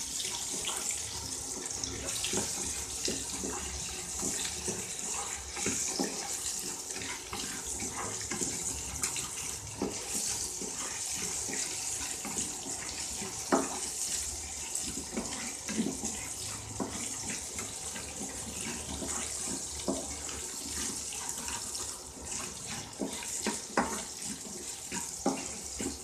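Small onions, garlic and dried sundakkai frying in oil in a kadai: a steady sizzle, with the flat spatula scraping and knocking against the pan at irregular moments as they are stirred.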